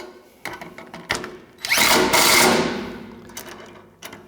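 A few light clicks, then about one and a half seconds in a power tool (a drill or impact driver) runs for about two seconds, tightening a 5/16 bolt with a flange nylock nut, and fades away.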